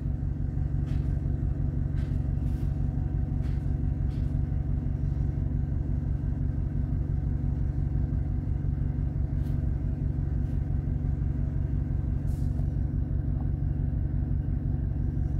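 Skoda Fabia's 1.4 TSI twincharged four-cylinder engine idling steadily, a smooth even low hum.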